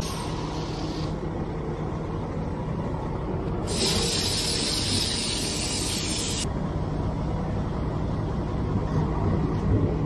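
Water hissing from a ready-mix concrete truck's wash-out hose as rubber boots are rinsed off: a short spurt at the start, then a steady spray for about three seconds in the middle. Under it the truck's engine keeps up a steady low rumble.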